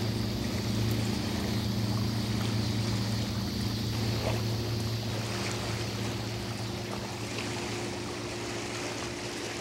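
A boat engine running at a steady drone over a hiss of moving water and air, easing slightly toward the end.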